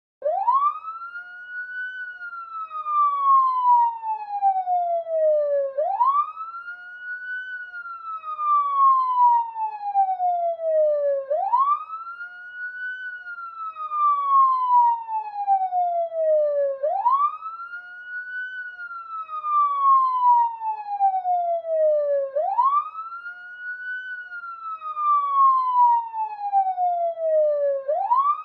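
Police siren on a slow wail: each cycle rises quickly in pitch, then falls slowly over about five seconds, repeating about five times.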